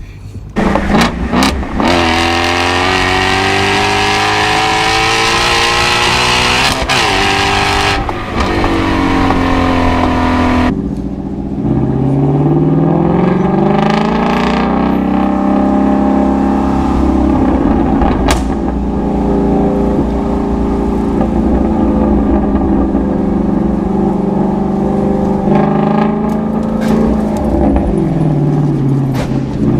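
Ford Shelby GT350's 5.2-litre flat-plane-crank V8 revving hard under load. The revs climb over the first several seconds under a loud hissing noise that cuts off suddenly about ten seconds in. The revs then climb again and hold steady for a long stretch, fall off and rise once more near the end.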